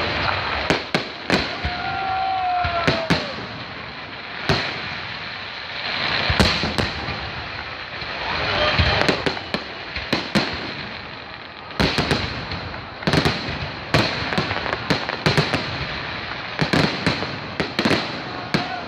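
Fireworks display: aerial shells bursting with sharp bangs in irregular volleys, some in quick clusters, over a steady background of crowd noise.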